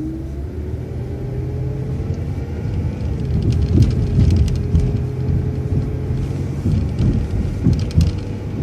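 City transit bus pulling away through a traffic light: a low engine rumble with a whine that rises in pitch over the first few seconds as the bus gathers speed, then levels off.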